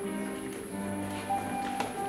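Background music of long held low notes that shift pitch now and then, with one short sharp click near the end.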